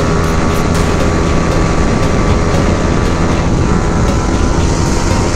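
Yamaha R15's single-cylinder engine running hard at about 140 km/h, with steady wind rush over the helmet-mounted microphone.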